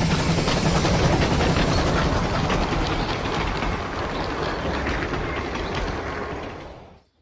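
G-scale (45 mm gauge) garden model train running on its track, wheels clicking along the rails in a dense rumble that fades out about six and a half seconds in.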